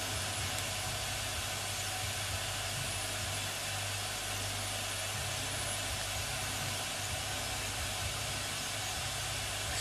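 Steady hiss with a low hum underneath from the Märklin 16051 model steam engine's fired boiler, heating and close to coming up to boil.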